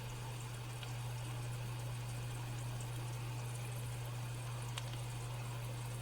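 Steady hiss of food boiling or frying on the stove over a constant low hum, with a couple of faint ticks about a second in and near the end.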